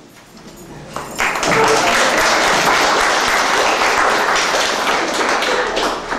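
An audience applauding, starting about a second in and stopping near the end.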